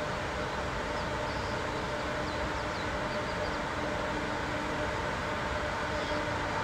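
Steady rushing noise of a tall waterfall, with a faint steady hum underneath and a few short, high bird chirps.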